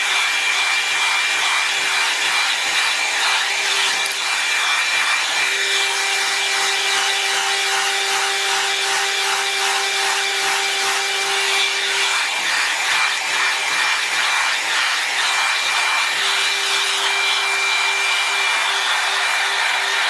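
Brush-attached hair dryer running steadily with a motor hum and whine, its brush rubbing through hair in rhythmic strokes.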